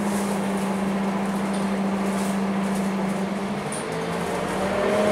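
Scania K230UB single-deck bus heard from inside the passenger cabin, its engine and driveline running with a steady low hum. About four seconds in the tone changes and a higher whine comes in as the bus pulls on.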